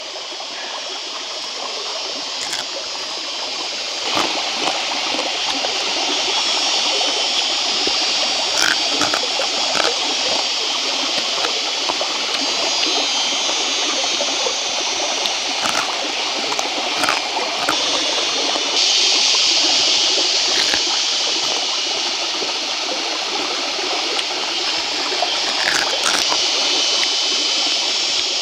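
Small forest stream running over rocks: a steady rush of water that grows louder over the first few seconds. A few sharp cracks and crunches of cooked stream-crab shell being broken apart and chewed stand out now and then.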